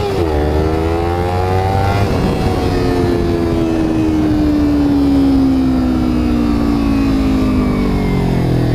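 Kawasaki Ninja 300's parallel-twin engine through an Akrapovic slip-on exhaust with the noise killer removed, run hard under acceleration. Engine pitch climbs, dips at a gear change right at the start and climbs again. From about two seconds in it falls slowly as the throttle is rolled off.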